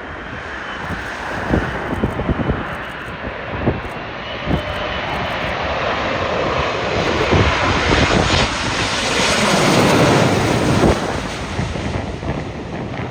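Jet airliner passing close, its engine roar building to a peak about ten seconds in and then easing off. Gusts buffet the microphone with low thumps in the first few seconds.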